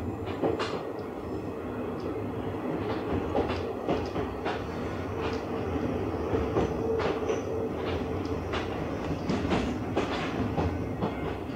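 JNR Series 50 passenger coach running on the rails: a steady rumble, with the wheels clicking sharply over the rail joints at irregular intervals.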